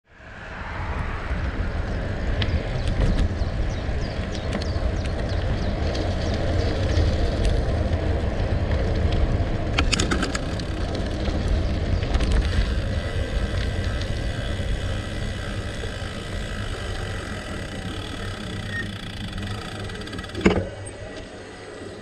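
Gravel bike rolling along a gravel track: a steady crunching rumble of tyres on loose stones, with a brief rattle about ten seconds in and a single sharp knock near the end.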